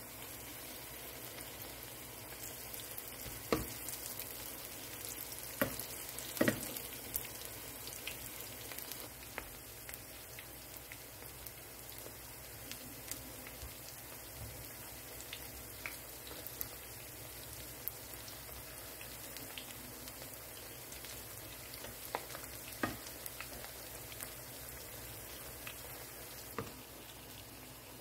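Battered cauliflower florets frying in hot oil in a pan: a steady sizzle with small crackles. A few sharp clicks of metal tongs against the pan come as the pieces are turned, most of them in the first seven seconds and one near the end.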